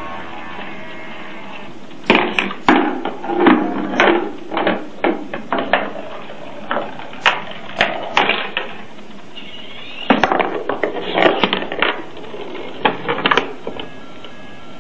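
Irregular clacking and knocks from a student-built Rube Goldberg machine's mechanisms, starting about two seconds in, pausing briefly, and stopping shortly before the end, over a steady background noise.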